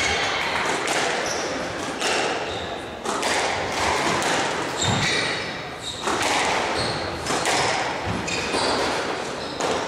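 Squash rally: the ball smacking off rackets and the court walls about once a second, with short high shoe squeaks on the court floor in between.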